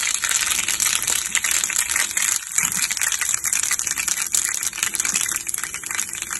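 Mustard seeds sizzling and crackling in hot oil in a frying pan: the first stage of a tempering (baghar) for kadhi.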